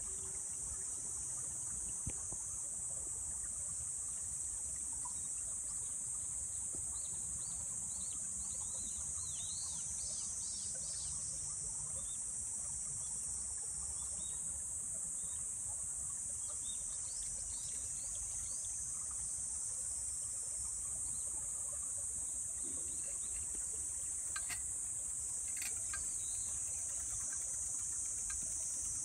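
A steady, high-pitched insect drone, with short bird chirps now and then, a cluster of them about ten seconds in.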